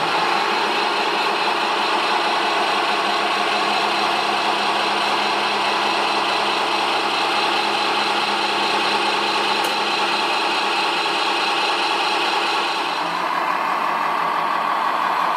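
Remote-control model trucks running, a steady engine-like drone with a low hum, changing tone about 13 seconds in.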